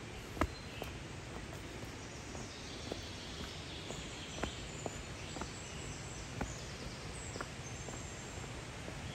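Small birds chirping in short high calls over a steady outdoor rush, with scattered sharp clicks and knocks, the loudest about half a second in.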